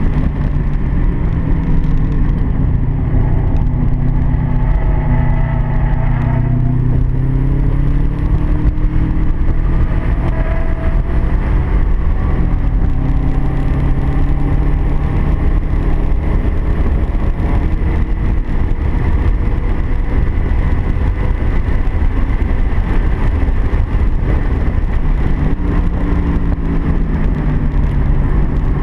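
Car engine running hard at track speed, its pitch falling and rising several times, over steady road and wind noise.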